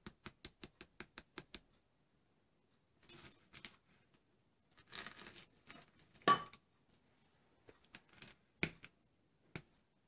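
Metal spoon tapping quickly on a crisp baked puff-pastry pie crust, about five or six taps a second, stopping near two seconds in. Then the spoon breaks through the crust with flaky crackling and one sharp crunch about six seconds in, followed by a few scattered clicks.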